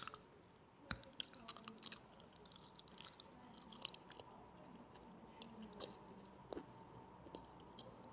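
Faint, irregular clicks and small crackles close to the microphone, over a faint steady high tone.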